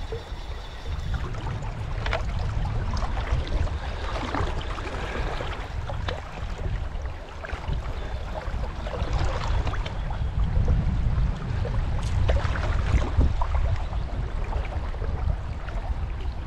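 Steady rush of a fast river's current over rocks, with wind buffeting the microphone as an uneven low rumble.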